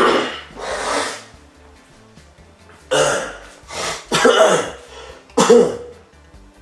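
A man coughing and clearing his throat, about six short harsh bursts spread over several seconds.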